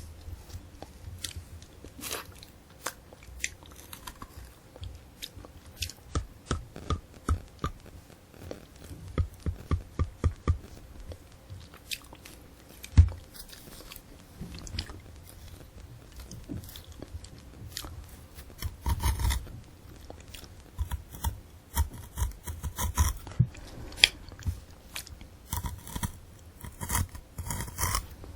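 Close-miked crunching and chewing of a candy apple: the hard sugar-candy shell cracking and the crisp apple flesh breaking between the teeth. The crunches come in quick runs, with one loudest crack about halfway through.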